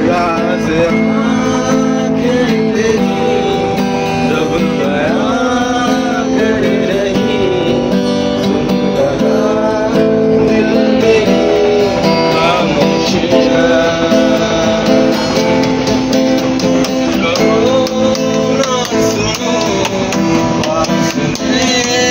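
Background music led by plucked and strummed guitar, steady throughout, starting on a sudden cut from the train sound.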